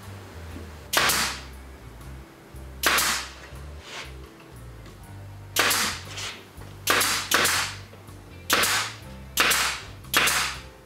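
Pneumatic pin nailer firing pins into a plywood panel: about eight sharp pops at irregular intervals, some close together, each with a short hiss of exhaust air.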